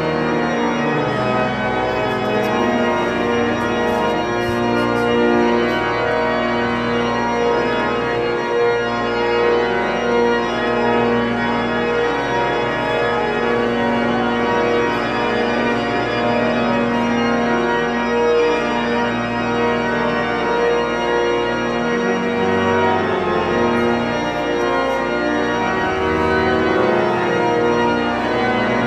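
Organ music playing slow, held chords, with notes sustained for a second or two before changing.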